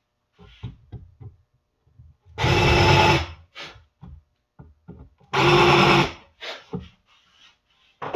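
Cordless drill running in two bursts of about a second each, boring into wooden frame pieces to widen pre-drilled holes so the screws sit flush. Light knocks of the wood being handled come between the bursts.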